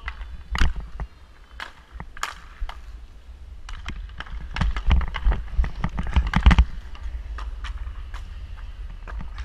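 Roller hockey play on a wooden rink floor: a steady low rumble of inline skate wheels rolling, with sharp clacks of hockey sticks striking the floor and puck. The clacks come in a busy cluster from about four and a half to six and a half seconds in.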